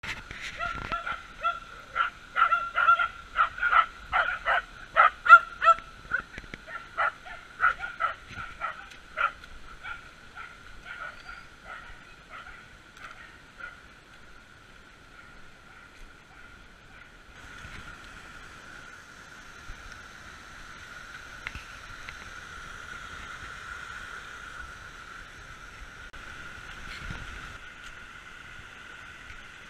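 Cocker spaniel barking in a rapid run of short barks, about two a second, dying away after about ten seconds. In the second half, the steady rush of a rocky forest creek.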